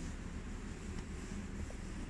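Steady low room tone: an even hum and hiss with no distinct events, apart from a faint tick about a second in.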